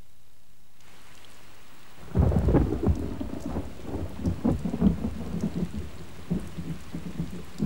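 Rain falling, with a long, rolling rumble of thunder that breaks in about two seconds in.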